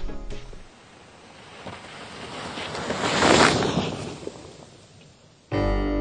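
A rushing whoosh that swells to a peak about three seconds in, then dies away. Music fades out at the start and comes back abruptly near the end.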